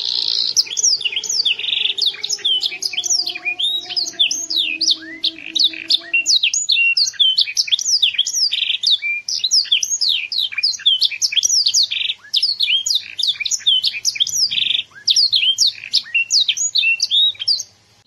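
Young domestic canary singing a loud, continuous song of rapid falling whistled notes, broken up by short buzzy rolls.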